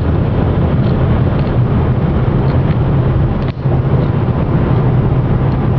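Steady low rumble of a car's engine and road noise heard inside the cabin while driving, with a brief dip in level about three and a half seconds in.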